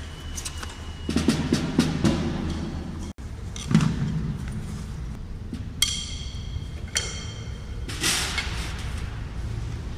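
Background music led by drums and percussion, with pitched notes over the beat; it drops out for an instant about three seconds in.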